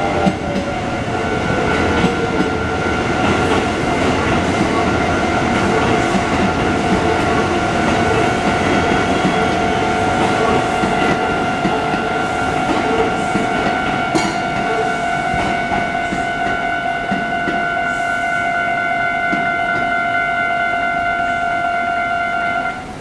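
Japanese level-crossing warning bell ringing steadily while a train passes with rumble and wheel clatter; the train noise thins in the second half, and the bell cuts off just before the end.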